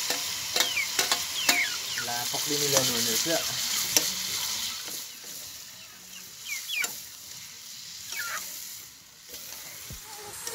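Meat frying in a steel wok over a wood fire, sizzling, with a metal ladle scraping and clinking against the pan as it is stirred. The sizzle is loudest in the first half and dies down after about five seconds.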